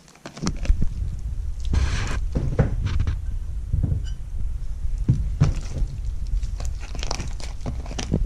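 Glitter slime being kneaded and squished by hand, irregular soft squelches and clicks over a low rumble of handling noise.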